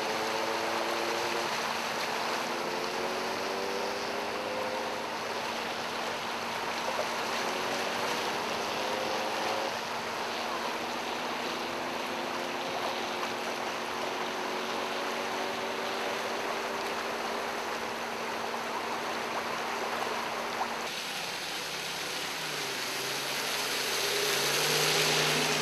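Cars driving slowly through deep floodwater on a freeway: a steady rush of water and tyre wash under the hum of engines that slowly rise in pitch. It swells briefly near the end as a vehicle passes close through the water.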